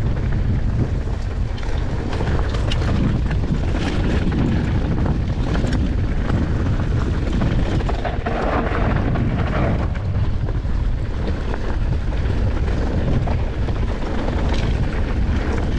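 Steady, loud low rumble of wind buffeting the camera microphone, with a few faint clicks and rattles scattered through it.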